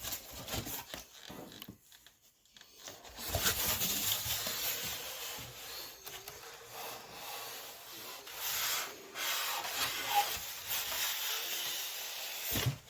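Cardboard box and packing being handled and slid about as a boxed part is unpacked: irregular rubbing and scraping.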